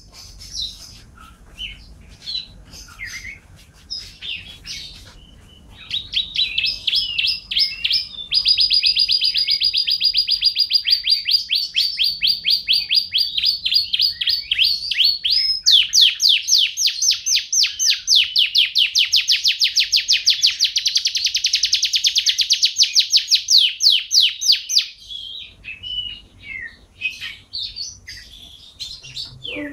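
Domestic canary singing: scattered high chirps, then long trills of rapidly repeated notes from about six seconds in until about twenty-five seconds in, the trill changing to a faster, louder, wider-pitched roll about sixteen seconds in, then scattered chirps again near the end.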